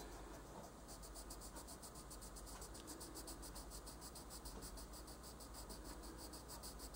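Faint scratching of a colored pencil shading on paper, over a faint, fast, even high-pitched pulsing of about ten beats a second.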